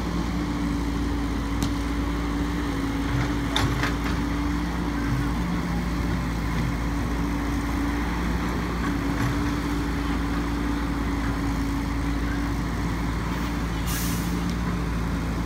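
Heavy diesel machinery running steadily, a tracked excavator and a low-bed truck, with a short hiss of air near the end.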